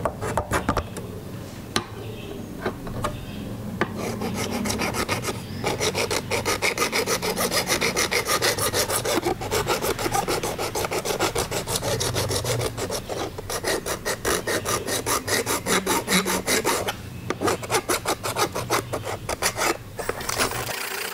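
Flat metal hand file rasping in quick back-and-forth strokes along a rusted steel scissor blade, filing off the rust. The strokes break off briefly near the end, then start again.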